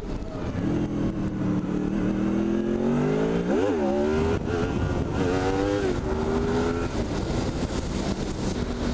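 Honda VFR's V4 engine revving hard as the rider lifts the front wheel into a wheelie. The pitch climbs to a peak about three and a half seconds in, drops sharply, and climbs again to around six seconds. It then falls back to a steady cruise note.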